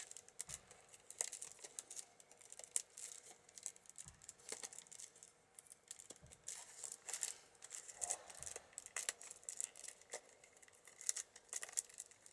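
Soaked wicker rod rustling and scraping as it is woven in and out of a basket's stakes, with quiet, irregular crackling clicks.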